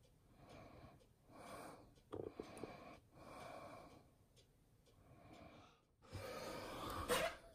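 Faint breathing close to the microphone, soft puffs about once a second. About six seconds in, a little handling noise with a small click.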